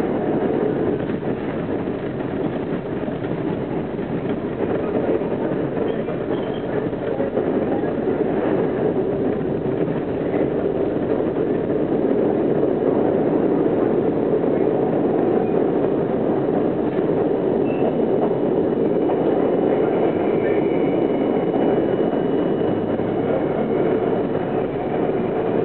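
R42 subway cars running through the tunnel: a steady rumble of wheels on rail. A faint high steady whine joins it about two-thirds of the way through.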